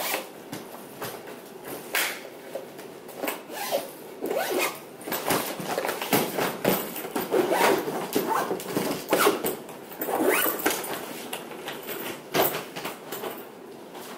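Zipper of a hard-shell suitcase being pulled shut around the case in many short strokes, with knocks as the case is handled.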